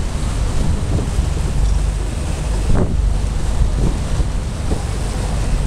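Wind buffeting the microphone on a charter fishing boat under way, over the boat's engine rumble and the rush of sea water. There is a single knock about three seconds in.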